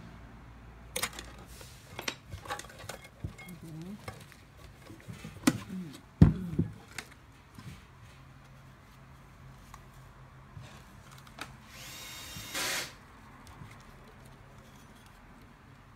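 Clicks and knocks of small parts being handled while a small motor is fitted into a watch winder, with a loud knock about six seconds in. A short burst of noise follows near the end, under a second long.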